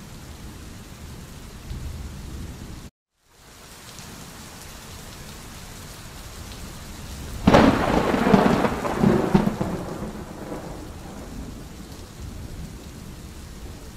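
Steady rain with a loud thunderclap about halfway through that rumbles and fades over a few seconds. The sound drops out to silence for a moment near the start.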